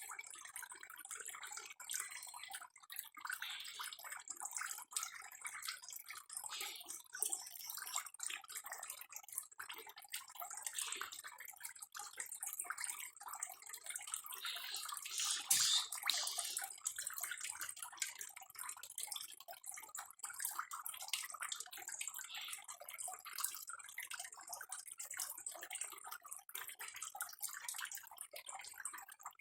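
Water splashing and trickling, a continuous patter of small drips and pops, with one louder splash about halfway through.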